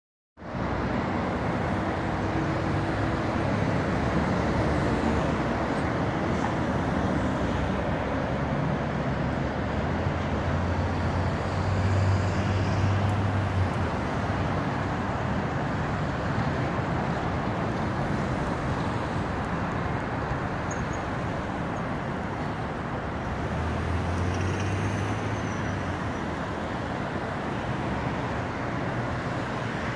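Steady urban road traffic noise: a constant hum of passing vehicles, with a low engine drone swelling twice, once in the middle and again a little before the end.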